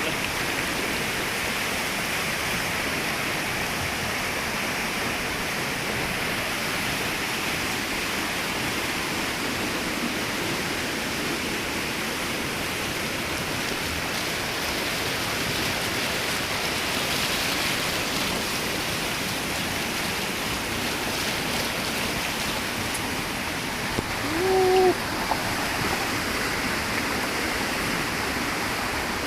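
Steady rush of flowing stream water. Near the end a brief pitched call rises over it for under a second.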